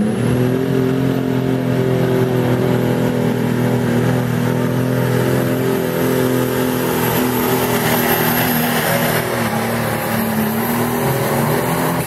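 Turbocharged pulling-tractor engine (6000 lb limited light super class) at full throttle while dragging the weight-transfer sled. The engine note holds at a steady high pitch, with a thin high whine above it.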